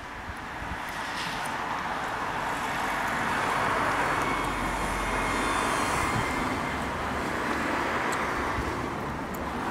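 Steady rushing and rumbling of a small steam railway train running, heard from a carriage window with wind across the microphone.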